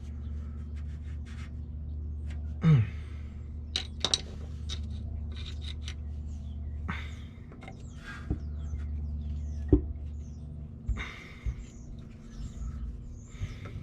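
Scattered clicks, taps and rubbing as a transmission speed sensor is wiggled and pried loose from its housing, over a steady low hum. The loudest moment is a brief sound about three seconds in whose pitch drops sharply, and there is a sharp click near the ten-second mark.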